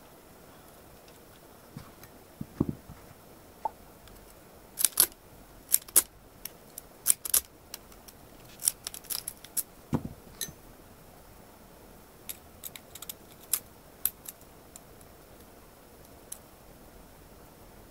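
Lock pick and tension wrench working the pins of a 6-pin ERA euro profile cylinder: irregular light metallic clicks and scrapes, busiest in the first ten seconds and sparser after, with one duller knock about ten seconds in.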